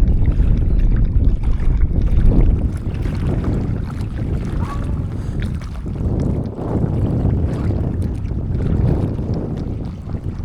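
Strong wind buffeting the microphone: a low rumble that rises and falls in gusts, heaviest in the first couple of seconds.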